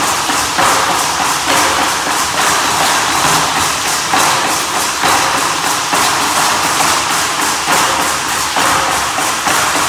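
Aztec danza percussion: a steady drum beat a little under once a second, under a continuous, rhythmic rattle shaking.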